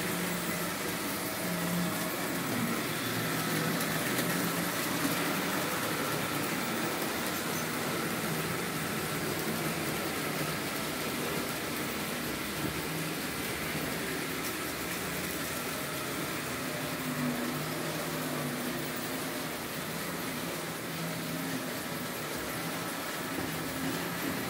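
Märklin H0 model trains running on metal track: a steady whirr of small electric motors and wheels rolling over the rails, with a faint hum that comes and goes.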